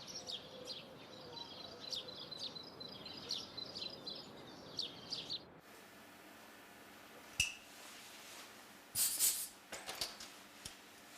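Small birds chirping in quick, repeated high calls. About halfway through they cut off abruptly, followed by a few sharp clicks and a brief hissing burst.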